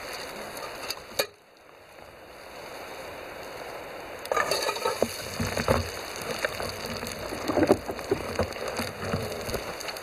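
Wheat-flour dough sizzling in hot oil in a frying pan over a wood fire, with scattered crackles. A click and a short lull come about a second in, and the frying grows louder from about four seconds in.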